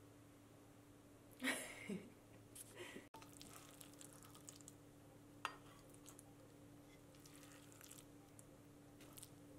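Wooden rice paddle working through freshly cooked white rice in a clay donabe pot: soft scrapes and squishes, the loudest about a second and a half in, and one sharp tap about five and a half seconds in, over a faint steady hum.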